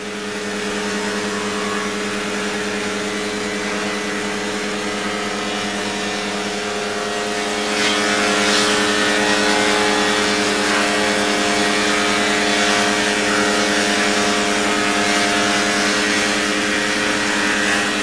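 Four-sided planer running loud and steady with a deep hum of stacked tones. About eight seconds in, it grows louder and a harsh high rasp joins as a reclaimed pine board feeds through the cutterheads, which plane all four faces and cut a tongue on one edge and a groove on the other.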